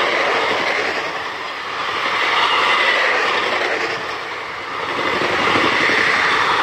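Blue passenger coaches of an Indian Railways express train running past close by, with a steady wheel-on-rail rumble and clatter. The noise swells and eases every few seconds as the coaches go by.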